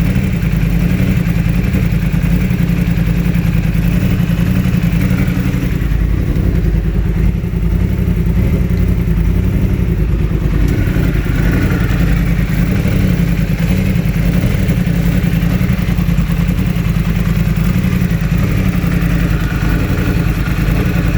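2016 Yamaha R1's crossplane inline-four engine running steadily, with a constant misfire on cylinder 4 that swapping its ignition coil with cylinder 1 did not cure.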